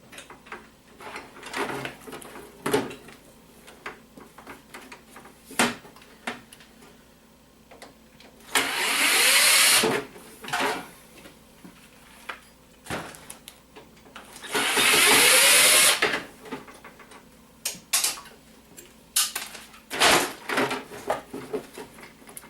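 Handheld power drill/driver running twice, each time for about a second or so, while screws are worked out of a scrap printer. Sharp clicks and knocks of plastic and metal parts being handled come in between.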